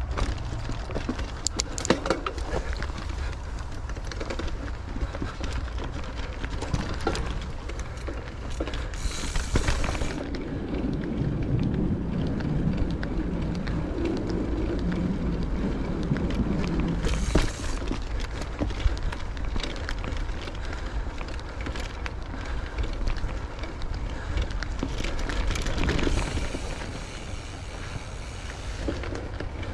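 Mountain bike ridden over dirt singletrack: tyres crackling over the trail and the bike rattling and clicking over bumps. A steady low wind rumble on the microphone runs underneath.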